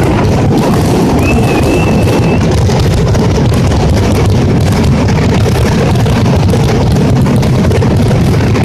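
Mascletà firecracker barrage, the bangs coming so fast they merge into a continuous loud rumble, with a brief whistle about a second in.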